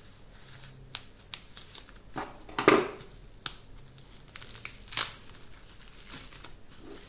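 Plastic bubble-wrap packaging crinkling and crackling as it is snipped with scissors and pulled apart by hand, with scattered sharp crackles, the loudest about two to three seconds in and again about five seconds in.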